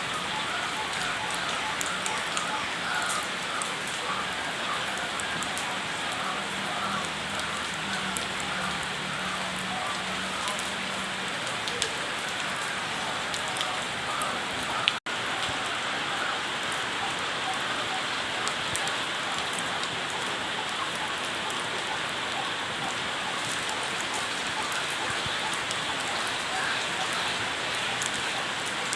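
Steady, even hiss like rain falling, with a brief cut to silence about halfway through.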